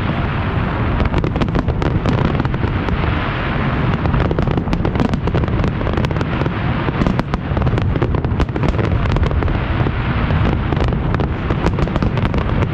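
Fireworks display: a dense run of rapid sharp bangs and crackles, several a second, over a continuous low rumble of explosions.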